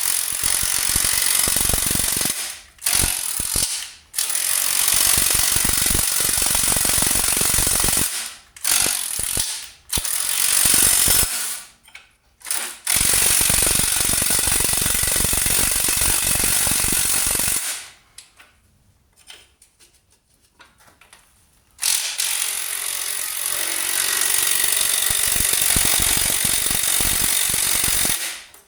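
Cordless impact driver hammering away at a rusty bolt in several long bursts of a few seconds each, with short pauses between them and a longer pause near the middle. The bolt is stuck fast and does not give.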